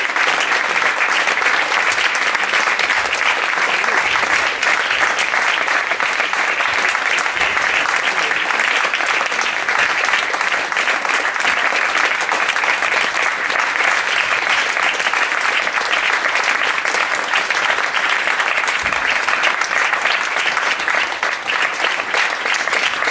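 Concert audience applauding: many hands clapping in a dense, even stream at a steady level.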